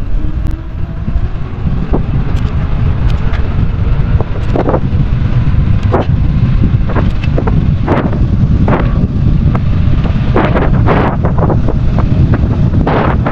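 Mountain bike ridden fast on smooth asphalt: heavy wind buffeting on the microphone over the rolling sound of its tyres, with scattered irregular clicks.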